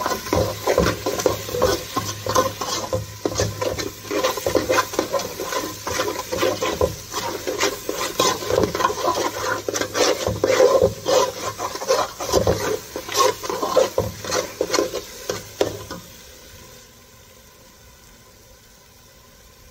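A metal spatula scraping and stirring thick semolina halwa against the sides and bottom of an aluminium pot, in quick irregular strokes, as the mixture cooks in ghee. The stirring stops about three-quarters of the way through, leaving only a faint steady hiss.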